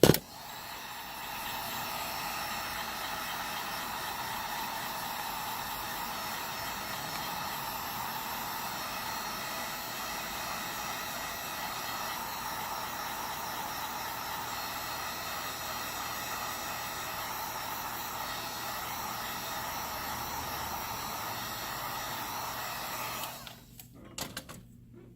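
Hot-air blower running steadily, heating the phone's glued screen to soften the adhesive. It starts after a sharp click and cuts off about 23 seconds in, followed by a few light clicks.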